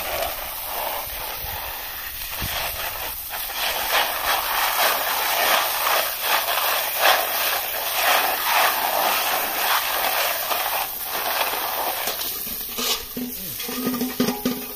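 Jet of water from a garden-hose spray nozzle hissing and splashing onto a plastic colander full of pond snails, the shells being stirred by hand in the spray. About two seconds before the end the jet swings onto the wet concrete and the sound becomes quieter.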